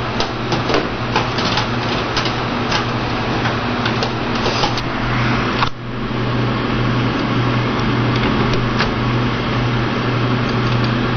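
Scattered clicks and knocks of a SATA hard drive and drive-bay parts being handled and fitted into a toolless computer case, with one sharp knock about six seconds in, over a steady low hum.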